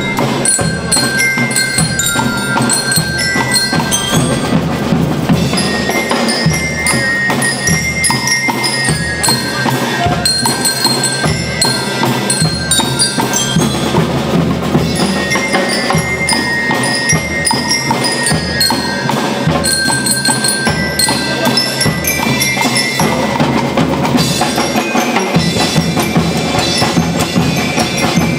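School rhythm band playing: bell lyres carry a bright chiming melody over snare drums, bass drums and a drum kit keeping a steady beat.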